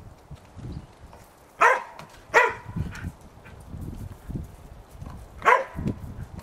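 Border Collie barking: three sharp barks, two close together about a second and a half in and a third near the end.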